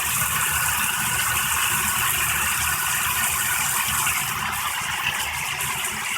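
Water spraying steadily from a 10-inch rainfall shower head into the tub, a constant hiss with a low rumble underneath.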